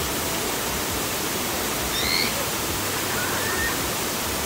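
Steady rush of water pouring over a stone weir into a shallow pool. A few faint, brief high calls rise over it about two and three seconds in.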